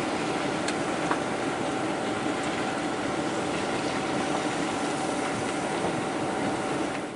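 Volvo 740 drifting on snow: engine held at steady revs with its tyres spinning and hissing on the snowy surface. The sound stops abruptly at the very end.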